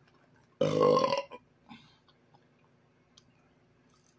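A man's single loud burp lasting under a second, about half a second in, followed by faint small clicks.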